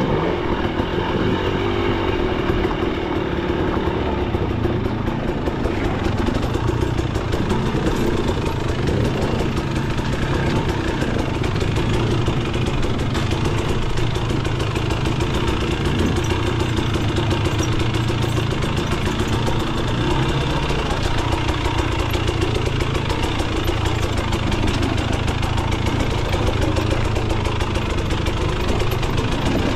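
Two-stroke dirt bike engine, a KTM 300 XC, running steadily under way on a trail.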